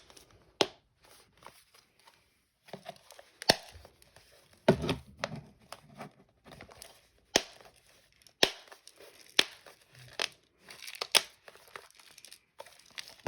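Plastic packaging crinkling and snapping as a sealed slime-clay container is worked at by hand to get it open, with repeated sharp clicks about once a second.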